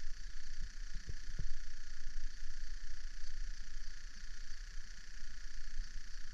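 Open-air ambience: a steady low rumble under a steady high-pitched drone, with two soft thumps about a second in.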